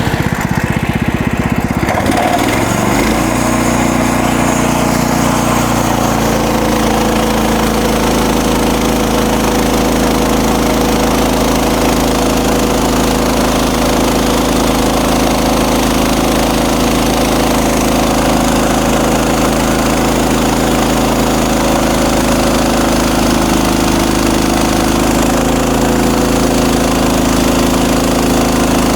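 Gasoline engine of a MechMaxx SM32 bandsaw mill coming up to speed in the first couple of seconds, then running steadily at a constant high speed.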